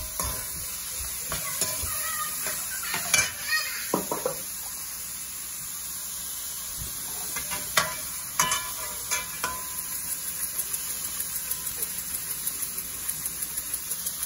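Diced vegetables sizzling in hot oil in a metal pan while a metal spoon stirs them, clinking and scraping against the pan. From about ten seconds in, the spoon strikes come as quick, even taps, about three a second.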